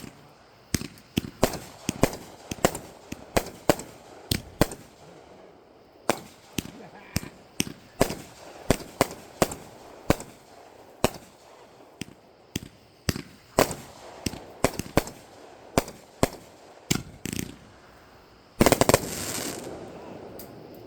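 Fireworks going off: a long run of sharp pops and bangs at uneven intervals. Near the end comes a louder, dense crackling burst that fades away.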